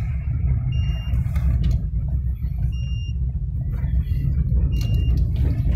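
Steady low rumble of a car driving on a wet road, heard from inside the cabin. A short high-pitched beep repeats about every two seconds.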